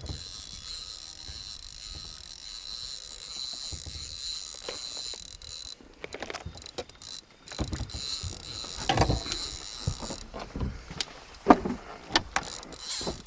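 A steady high-pitched whirring hiss for about the first six seconds, then it stops and irregular knocks and clattering follow: handling noise in a small fishing boat.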